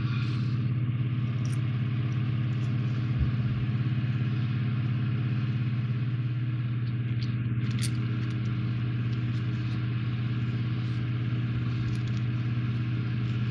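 Steady low electrical-sounding hum with even overtones. A few faint clicks of small plastic parts being handled break through it.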